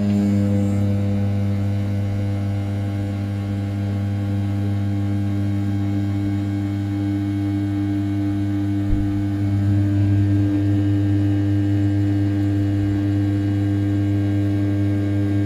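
500 W brushless spindle on an RZ420 desktop CNC mill, running at about 6000 rpm while an end mill rough-cuts the outer profile of an A7075 aluminium block: a steady hum with a strong low tone and its overtones, and one brief tick about nine seconds in.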